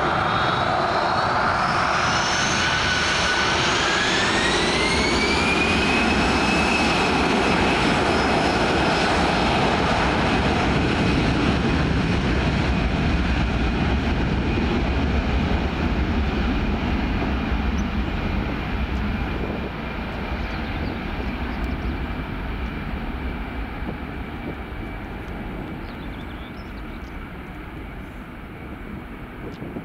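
Airbus A320's twin jet engines spooling up, a whine rising in pitch a few seconds in, then running steady at high power as the airliner rolls away down the runway for takeoff. The sound slowly fades in the second half.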